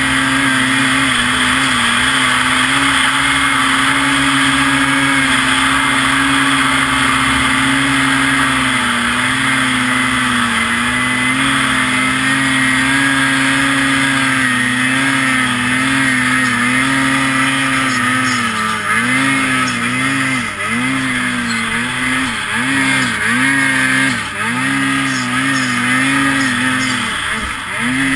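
2022 Ski-Doo Freeride 850 two-stroke snowmobile engine running at high, steady revs under load as it climbs through deep snow. About two-thirds of the way through, the revs start dipping and rising again and again, about once a second, as the throttle is worked.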